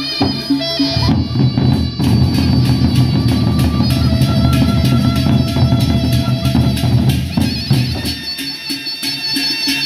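Sasak gendang beleq ensemble playing in procession: large double-headed barrel drums beaten with sticks, with hand cymbals clashing over them. A steady pulse of about four beats a second at the start gives way about a second in to a dense, loud passage of drumming.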